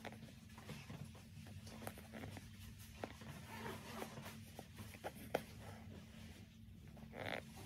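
Faint rustling and small scratches of a nylon puffer jacket's shell being handled while it is stitched by hand, with a short swish near the end as thread is drawn through. A steady low hum runs underneath.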